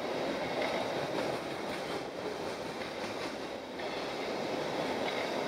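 Container freight train's wagons rolling past: a steady rumble and rattle of steel wheels on the rails.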